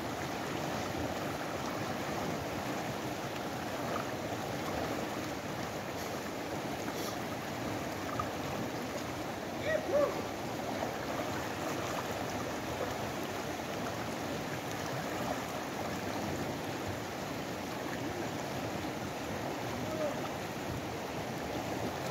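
Muddy, fast-flowing river rushing steadily, with a brief voice about ten seconds in.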